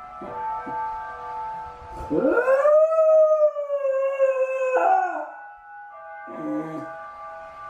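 Shiba Inu howling: one long howl starting about two seconds in that sweeps up steeply in pitch, holds, then sags slowly and breaks off with a short drop after about three seconds. It is the lonely howl of a dog left home alone.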